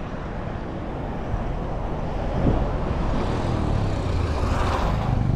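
A motorcycle taxi coming up the road, its engine growing louder near the end, over steady road noise and low wind rumble on the microphone.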